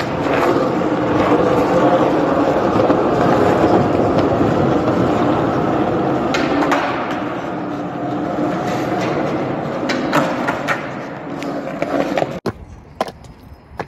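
Skateboard wheels rolling on a concrete car-park floor with a steady roar, broken now and then by sharp clacks of the board popping and landing. About twelve seconds in the roar cuts off suddenly, leaving a quieter stretch with a few light clicks.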